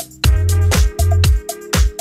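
Upbeat dance-style background music with heavy bass and a steady beat of about two drum hits a second.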